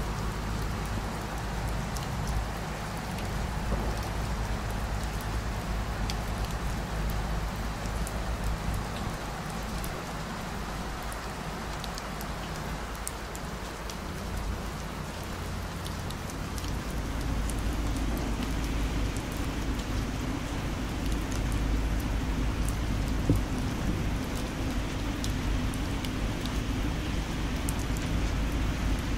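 Steady rain falling, with sharp close raindrops ticking over a low rumble.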